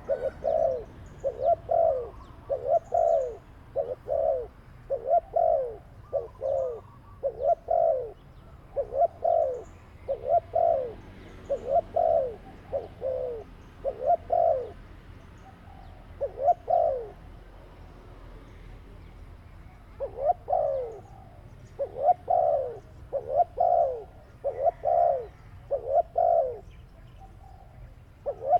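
A dove cooing over and over: short coos that fall in pitch, coming in quick pairs and runs, with a pause of a few seconds partway through before the calling picks up again.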